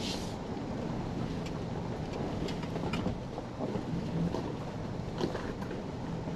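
Cab interior of a 2023 Toyota Tundra TRD Pro driving on a dirt trail: a steady low rumble from the truck and its tyres on the dirt. Scattered short clicks and knocks, from the cab or suspension going over bumps, come through it.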